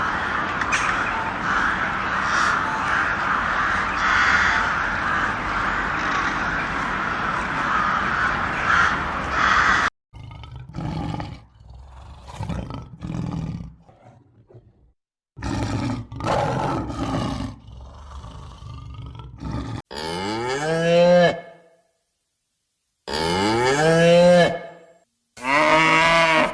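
A run of separate animal sounds. First comes a steady noisy stretch of about ten seconds, then short broken sounds with gaps, then three drawn-out calls with a clear pitch in the last six seconds.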